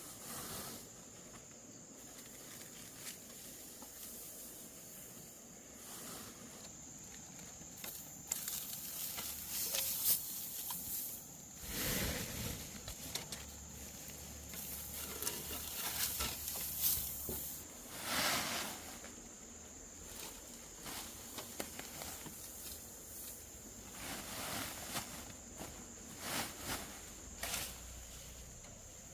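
Intermittent rustling noises, loudest in the middle, over a steady high-pitched insect drone.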